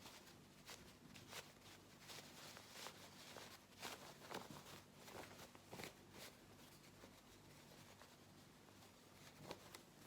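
Faint rustling and brushing of cotton fabric as a hand-sewn cloth mask is turned right side out through the gap left in its seam, mostly in the first six seconds.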